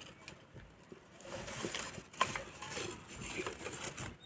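Dry jute sticks catching fire in the firebox of a clay stove: irregular small crackles and snaps with a light rustle of the sticks, one sharper snap about two seconds in. This is the kindling stage of lighting the stove from below, without kerosene.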